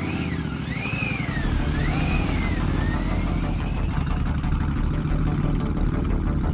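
An engine running with a steady, fast-pulsing rumble. Over its first few seconds a high wavering whistle-like tone rises and falls several times.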